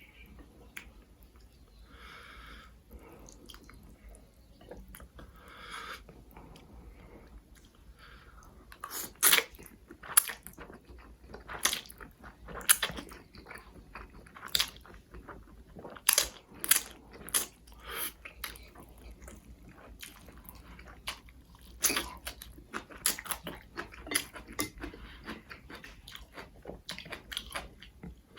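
Close-miked mouth sounds of a person eating spicy noodles: soft, wet noises at first, then from about nine seconds in a run of sharp, irregular clicks and crunches from biting and chewing.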